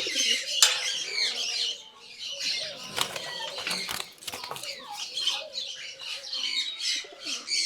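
Pigeons in a loft: wing flaps and high chirping calls, with a few sharp clicks.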